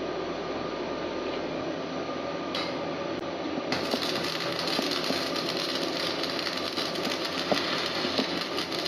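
Electric welding arc crackling and hissing steadily, growing hissier about four seconds in.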